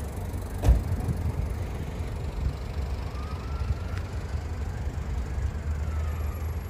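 Street traffic noise: a steady low rumble of vehicles, with a single sharp thump about a second in and a faint high-pitched squeal later on.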